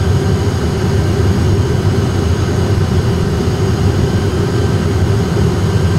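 Steady low drone of an Airbus A320's jet engines and airflow heard in the cockpit on final approach, with a constant hum running through it.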